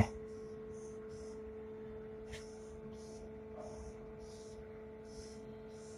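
Marker pen strokes on a whiteboard, short scratchy rubs about two a second with small pauses, over a steady low electrical hum.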